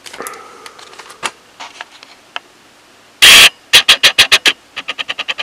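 Small cardboard box holding a vape-juice bottle, picked up and handled close to the microphone: faint taps at first, then a short loud scrape about three seconds in, followed by two quick runs of sharp clicks and knocks, about eight a second.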